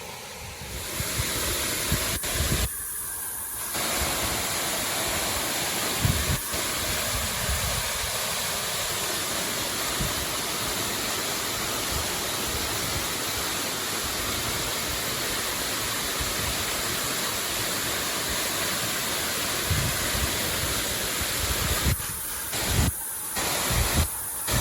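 Waterfall: a steady rush of falling water, cutting out briefly about three seconds in and several times near the end.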